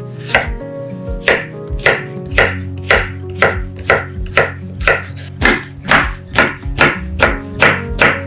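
Kitchen knife chopping zucchini and eggplant on a wooden cutting board, a steady sharp knock of the blade on the board about twice a second. Soft background music with sustained notes plays underneath.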